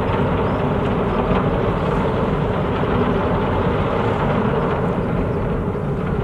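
The car ferry Konpira 2's engines and thrusters running steadily as the ship manoeuvres slowly alongside its berth: an even, loud mechanical noise with a faint hum in it.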